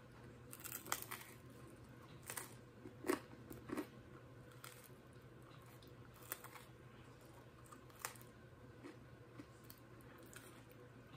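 A person biting into and chewing a slice of thick-crust pizza. There are scattered crunches of the baked crust, several in the first four seconds and a few fainter ones later.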